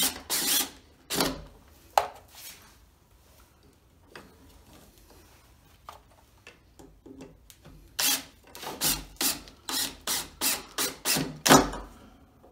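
Cordless drill driving screws into a wooden post to fix a shelf bracket, run in short trigger bursts about three a second. A quieter stretch of small handling clicks comes in the middle, and the bursts resume about two-thirds of the way in.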